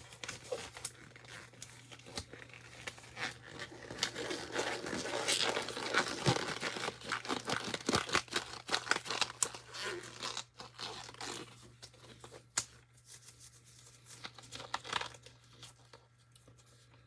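Paper or plastic being torn and crinkled by hand, with many sharp rustles and clicks. It is busiest through the middle and dies down near the end.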